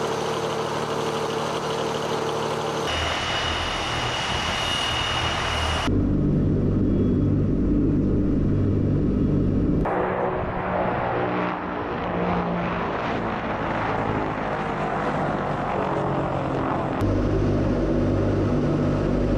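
Tu-142's four Kuznetsov NK-12 turboprop engines with contra-rotating propellers, running with a steady, low, multi-toned drone. The sound changes abruptly several times as the shots change.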